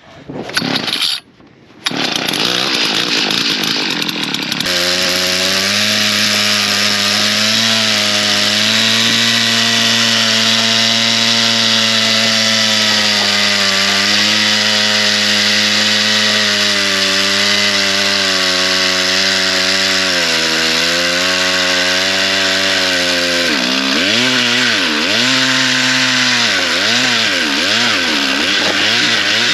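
Small gasoline engine running steadily at high throttle, settling in about four seconds in. Near the end its pitch swings up and down over and over.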